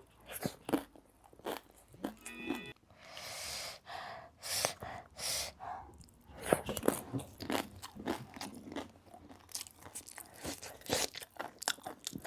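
A person chewing crunchy food close to the microphone, with many short crunches and a few sharp hissing breaths between bites.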